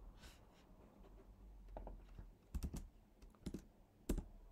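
Faint, scattered keystrokes on a computer keyboard: a few separate clicks with pauses between them, the loudest near the end.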